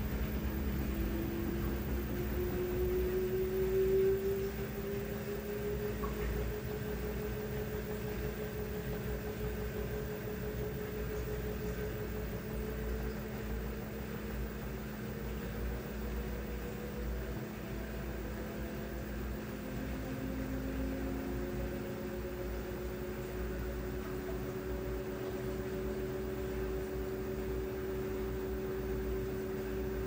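LG washing machine running: its motor whine glides slowly up and down in pitch over a steady low hum.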